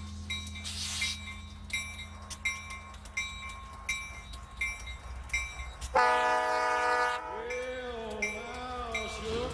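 Union Pacific diesel freight locomotive rumbling low while a bell rings about twice a second. About six seconds in, its air horn sounds a long chord that holds for a second, then wavers in pitch for some two seconds more.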